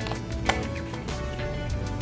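Background music with steady held notes and a low beat, with a single sharp click about half a second in.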